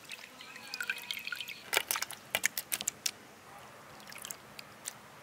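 Water splashing and dripping as a hand swishes and squeezes peeled prawns in turmeric water in a clay pot, washing them. Small sharp drips and splashes come thickest about two to three seconds in, then fewer.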